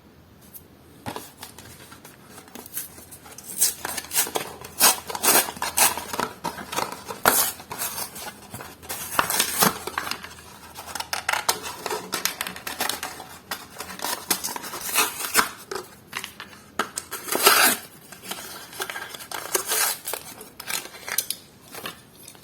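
Plastic blister packaging and card backing of a diecast toy car being handled and opened: irregular sharp plastic clicks, scrapes and crackles.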